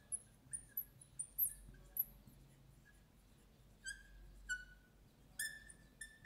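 Marker pen squeaking on a glass lightboard as it writes. It gives a series of short, high squeaks and chirps in clusters, with brief pauses between words.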